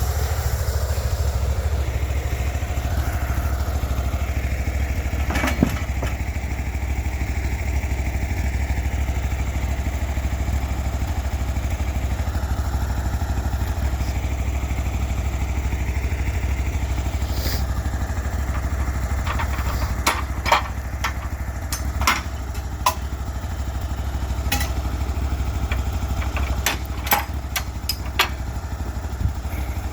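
Cook's MP32 sawmill's engine running steadily with a low drone. A sharp knock comes about five seconds in, and a scatter of clicks and knocks comes in the second half.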